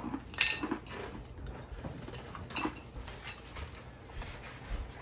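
Scattered soft clicks and light clinks, a few in each second, from handling tableware and cookies at a table.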